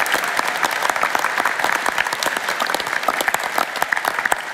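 Large auditorium audience applauding: dense, steady clapping from many hands.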